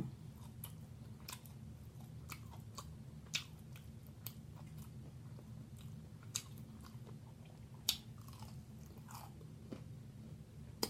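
Close-miked wet chewing of jumbo shrimp dipped in garlic butter sauce, with scattered sharp mouth clicks and smacks, a few louder than the rest, over a steady low hum.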